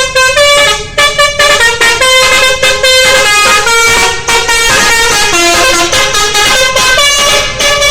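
Basuri V3 telolet multi-tone bus horn playing a fast melody: a loud, unbroken run of bright horn notes changing pitch several times a second.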